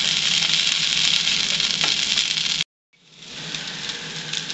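Breaded morel mushrooms sizzling as they pan-fry in butter and oil in a nonstick skillet, with a spatula turning them. The sizzle cuts out for an instant about two-thirds of the way through and comes back softer.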